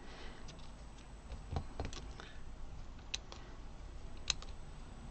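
Small embroidery scissors snipping into the fabric's seam allowance: two faint, sharp clicks a little over a second apart in the second half. Before them come a couple of soft knocks as the scissors are picked up.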